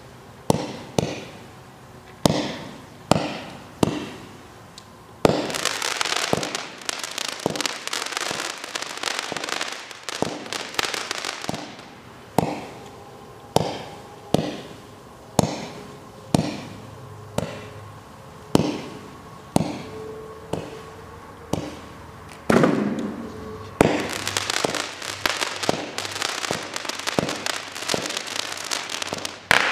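WinCo Fireworks Fiesta (WP634) multi-shot consumer fireworks cake firing: a steady series of sharp launch bangs, roughly one or two a second. Dense crackling breaks fill the air from about five seconds in to about twelve, and again near the end.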